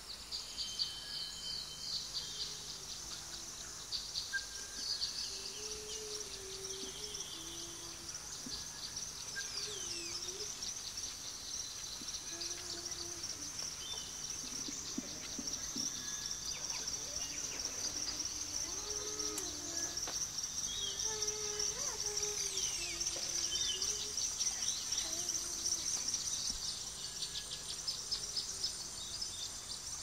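Outdoor bird chorus: many birds chirping and whistling over a steady, high, buzzing insect-like hum, while a lower, wavering call repeats every second or two.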